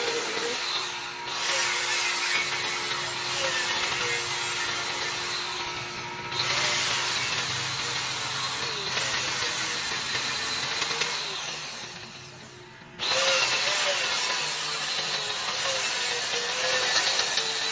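A power tool running in long stretches with a high hissing, grinding noise, winding down and starting up again three times, the last after a slow fade about 12 seconds in.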